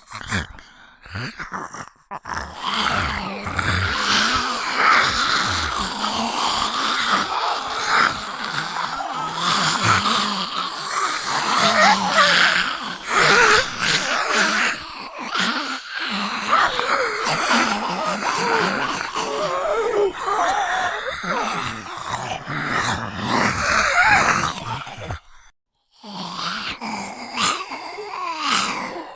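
Zombie voice sound effects: a person's raspy groaning and moaning, continuous apart from a short break about 25 seconds in.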